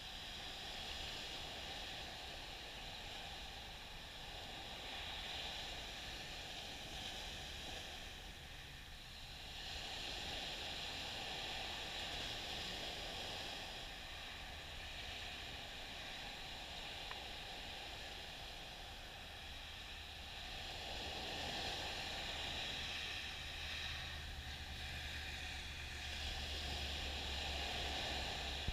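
Small waves breaking and washing up a sandy beach, the surf swelling and easing every several seconds.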